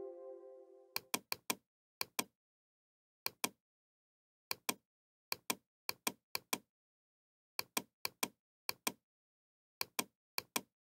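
Computer mouse button clicks, mostly in quick pairs, about a dozen groups spaced unevenly, with dead silence between them. A fading musical tone trails off at the start.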